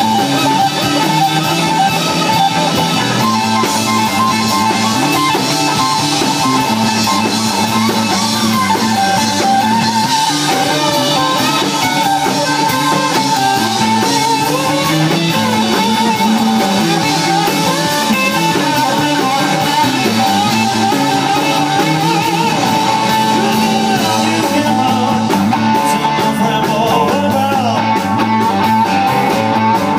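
Live blues-rock band playing: electric guitar over bass guitar and drum kit, loud and continuous.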